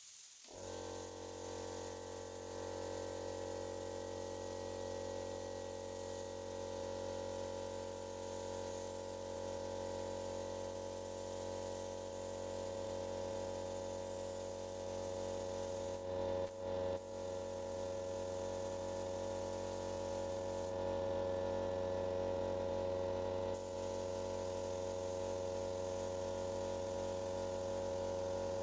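Gravity-feed spray gun hissing as it sprays finish, over a steady machine hum from its air supply that comes on just after the start. The hiss breaks off briefly twice past the middle.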